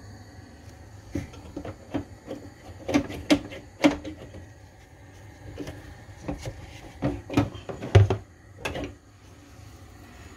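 Irregular knocks and clicks of kitchen handling, about fifteen of them, the loudest about eight seconds in, over a steady low hum.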